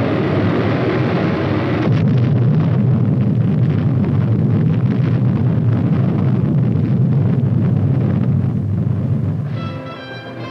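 Loud, continuous roar and rumble of a rocket launch and an explosion, turning crackly about two seconds in. It dies down near the end as music comes in.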